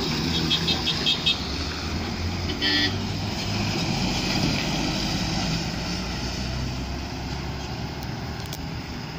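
Truck and bus engines running as the vehicles pass close by on a hairpin bend, with horn toots: a quick series of short beeps about half a second in and one short blast near three seconds.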